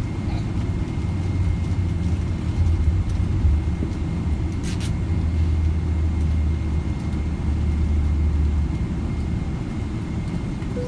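Boeing 777 cabin noise: a steady low rumble of engines and airframe, heavier in the middle stretch, with a faint steady high whine over it, heard from inside the cabin while the jet rolls on the ground after landing. A single brief click comes about five seconds in.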